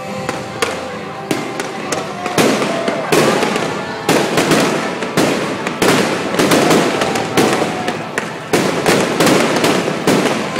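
Fireworks going off: a fast, dense run of sharp bangs that grows busier from about two seconds in and keeps on closely spaced.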